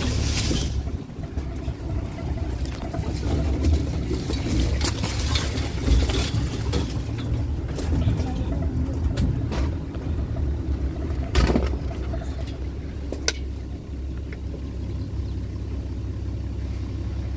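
Safari vehicle's engine running with a steady low hum. A few short knocks and rustles come from the phone being handled and moved about.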